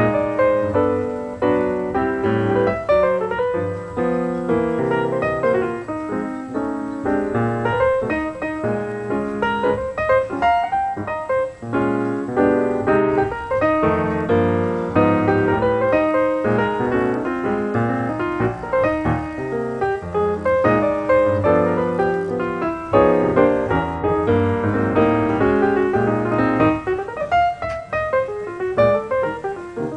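Background piano music, a quick flowing melody with chords.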